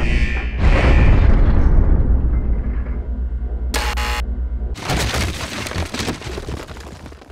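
Cartoon war sound effects: a deep boom that dies away over a couple of seconds, a short electronic buzz as a red button is pressed, then a crackling explosion blast that fades out.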